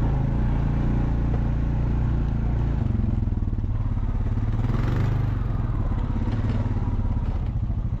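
Four-wheeler (ATV) engine running steadily as it drives laps through snow, towing a trailer to pack down the trail; the engine note shifts about three seconds in.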